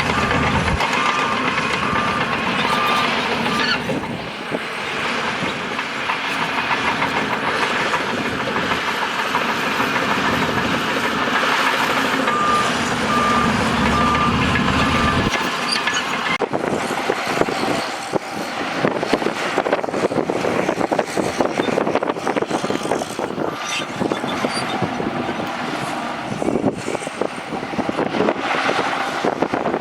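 Bulldozer's diesel engine running hard, its reversing alarm beeping steadily in the opening seconds and again about halfway through. In the second half, clattering and crunching from the tracks and the rock and dirt being pushed join the engine.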